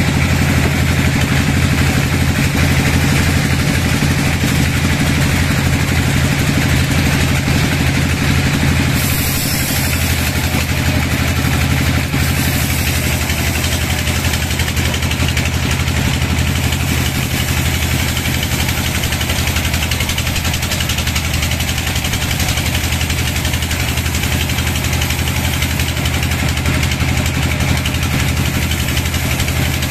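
Vertical band sawmill running as it saws lengthwise through a curved log: a steady low machine hum under the even hiss of the blade cutting the wood.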